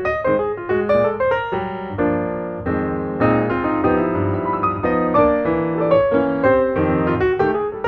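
Piano music: a fast run of notes over sustained chords.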